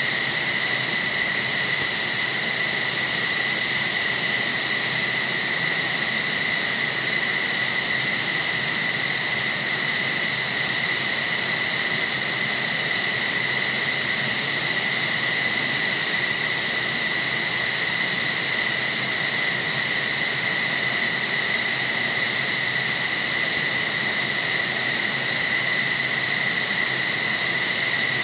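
F-15SG's Pratt & Whitney F100 turbofans running at ground idle after start-up: a steady, high turbine whine over a constant rush of jet noise that holds unchanged throughout.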